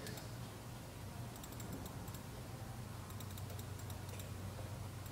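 Faint computer keyboard typing: short clusters of light key clicks over a steady low electrical hum.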